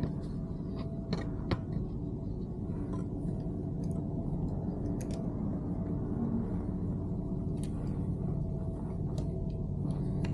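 A steady low hum with scattered light metallic clicks and taps, from a chain breaker tool being fitted onto a motorcycle drive chain.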